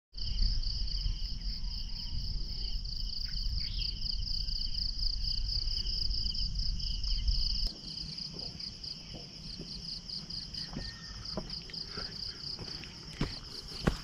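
A chorus of insects chirping, a fast steady pulsing at two high pitches. A low rumble underneath cuts off abruptly about halfway. Footsteps then crunch on loose gravel, growing nearer, with the loudest step just before the end.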